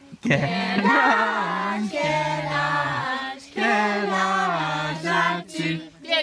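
A group of people singing a birthday song together, in long held notes with short breaks between the phrases.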